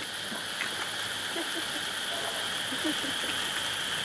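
Firework ground fountains spraying sparks with a steady hiss that grows slightly louder as they build.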